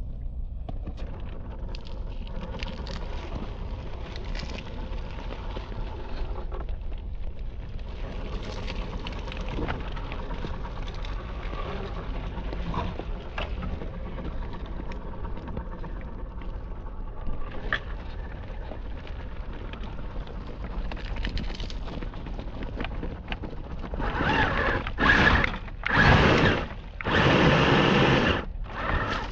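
RC scale crawler's electric motor and gears whining in four short bursts near the end as it is driven in spurts. Before that there is a low steady rumble with faint crunching and a few clicks.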